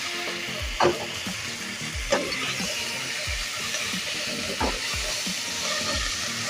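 Onions, ginger-garlic and pilau spice mix sizzling steadily in hot oil in a cooking pot, with a few sharp knocks of a stirring spoon against the pot, about a second in, at two seconds and near the middle.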